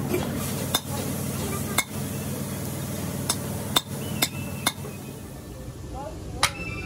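Sharp metallic clinks and taps, about seven scattered over several seconds, each with a short ring, over a steady low workshop hum.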